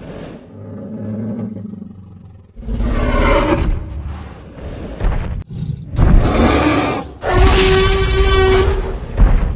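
Tyrannosaurus rex roar sound effect: a low growl, then a series of loud roars, the longest held about a second and a half at a steady pitch near the end, with a deep thump just before the end.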